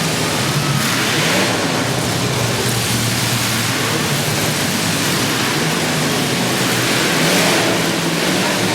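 Many demolition derby cars' engines running and revving together, a dense continuous noise with no clear breaks.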